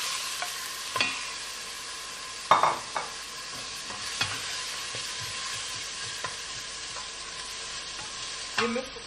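Chopped onions and garlic sizzling steadily in hot olive oil in a stainless steel pot while being stirred with a wooden spoon, as they sweat towards translucent. A few sharp knocks sound over the sizzle, the loudest about two and a half seconds in.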